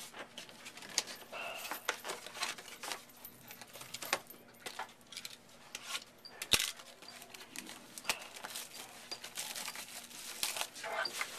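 Topps Finest football card box and its packs being opened and handled: crinkling and tearing of packaging with scattered clicks and taps, the loudest a sharp click about six and a half seconds in.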